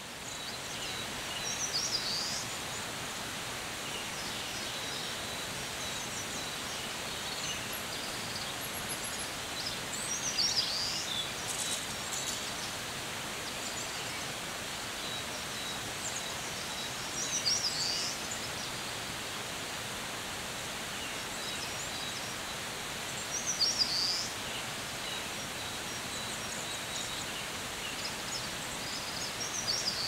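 Steady rushing of a mountain stream, with a bird singing a short phrase roughly every seven seconds, five times, and a few fainter high bird notes between.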